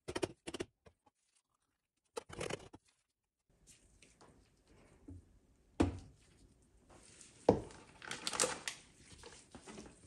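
Amber jars knocking as they are picked up and set down on a metal kitchen scale and the countertop, with rustling handling noise in between. The two loudest knocks come about six and seven and a half seconds in.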